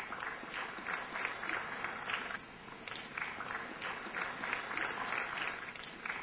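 Audience applauding, many hands clapping at once, with a brief lull about two and a half seconds in.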